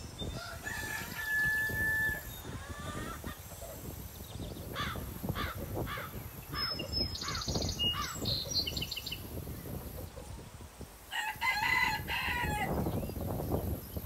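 A rooster crowing twice, about a second in and again near the end, with a string of short bird calls and some high chirps in between.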